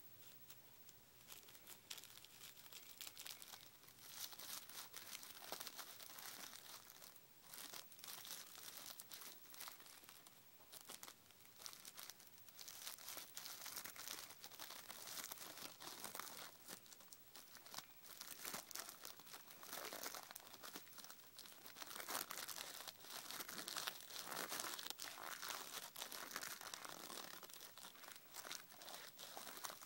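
Thin rolling paper crinkling and rustling between the fingers as a joint is rolled: a faint run of small crackles that gets busier about four seconds in.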